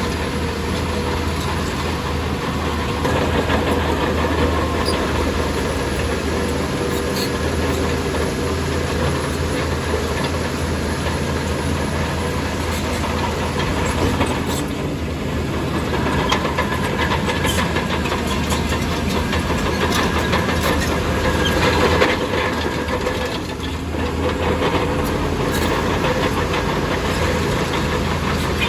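Bulldozer's diesel engine running steadily under load, with repeated metallic clanks and rattles from its steel tracks.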